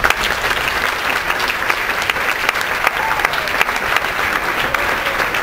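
Audience applauding: dense clapping that breaks out suddenly and carries on at an even level.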